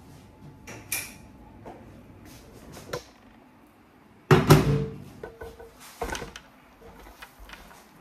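Microwave oven door pushed shut with a clunk a little past four seconds in, among a few lighter kitchen knocks and clatters.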